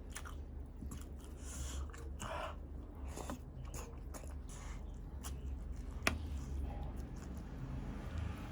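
A person chewing and biting into balut, a boiled fertilised duck egg, close to the microphone: irregular small clicks and short wet smacks, one sharper click about six seconds in, over a steady low hum.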